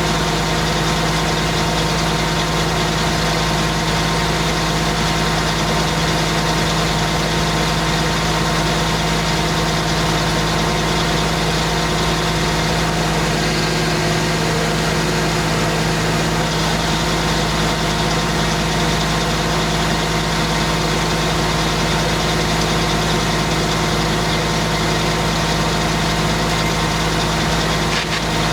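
Engine of a homemade circular sawmill running steadily at one constant speed, its hum unchanging.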